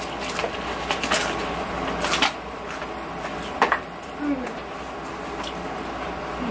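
Pringles potato crisps being bitten and chewed, a handful of sharp crunches over the first four seconds.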